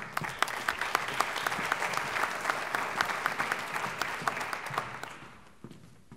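Audience applauding: a dense patter of many hands clapping that fades out about five seconds in.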